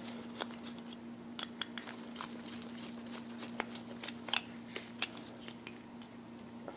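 Faint, scattered clicks and scrapes of a screwdriver turning small screws out of a plastic speaker housing, over a faint steady hum.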